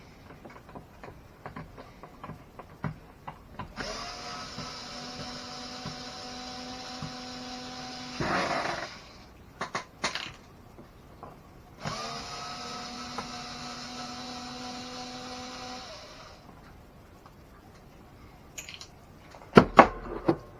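Power drill spinning in two runs of about four seconds each with a steady whine, backing fasteners out of an RC truck during disassembly. A few loud sharp knocks come near the end.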